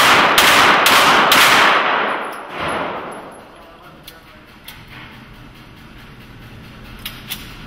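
Handgun fired four times in quick succession, about half a second apart, each shot ringing on in the reverberant indoor range, followed by a softer single report and a few faint clicks.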